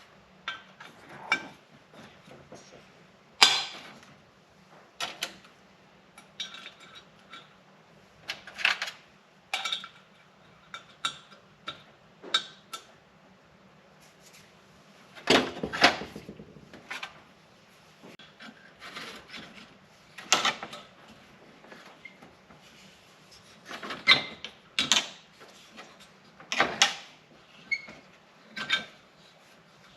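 Hand tools and metal engine parts clinking, tapping and clattering irregularly during cylinder head reassembly, with a few louder knocks.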